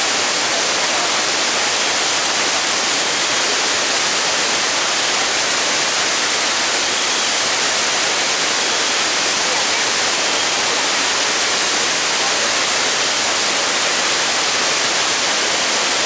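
Water released through a concrete dam's open spillway gates, pouring down the dam face into the river below: a loud, steady rush of water.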